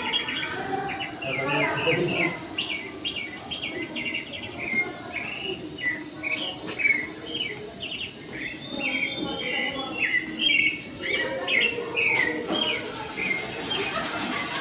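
Many birds chirping in quick, repeated short calls, several a second, overlapping throughout.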